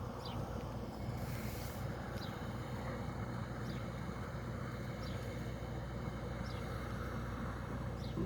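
Steady low drone of an engine running at the construction site, with a short high falling chirp repeating about every second and a half and a brief hiss about a second in.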